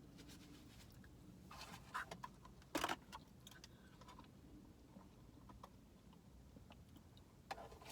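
Soft eating sounds, chewing and a few short clicks of a utensil in a takeout container, over a quiet car interior. The loudest noise is brief, about three seconds in.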